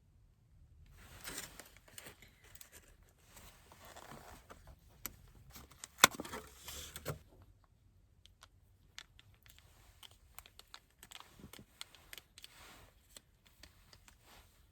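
Crinkly material being handled and torn: rustling and tearing for about six seconds, with one sharp snap near the middle, then light scattered clicks.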